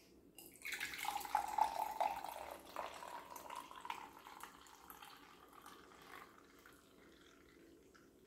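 Sparkling water poured from an aluminium can into a clear plastic cup, splashing and fizzing. It starts about half a second in, is loudest over the next two seconds, and then tapers off as the stream thins.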